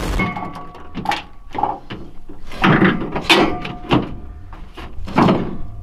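Steel oxygen cylinder being handled and set in place on a pickup's bed liner: a string of about six separate knocks and clunks, some with a brief metallic ring.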